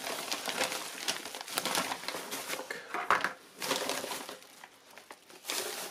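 Yellow paper padded mailer envelope crinkling and rustling as it is handled and tipped to slide out a blister-packed knife, an irregular crackle with a louder burst near the end.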